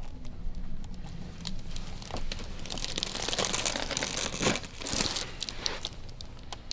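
Crinkling and rustling with scattered sharp clicks from a patient shifting on a chiropractic treatment table. The rustling is densest in the middle.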